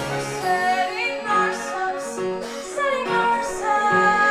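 Female vocalist singing a musical-theatre song with live band accompaniment: her gliding sung lines ride over a repeating pattern of short instrumental notes, ending on a long held note near the end.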